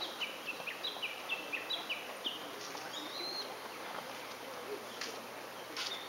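A wild songbird singing a quick run of short notes that step between two pitches, about four a second, for the first two seconds, then a single rising whistle about three seconds in, over a steady outdoor hiss.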